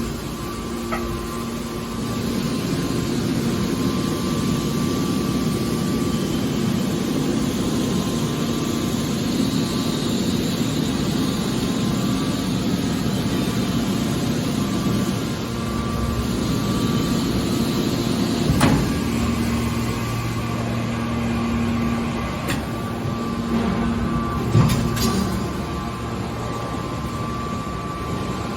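Metal press baler running with a steady machine hum, with three sharp metallic knocks in the second half.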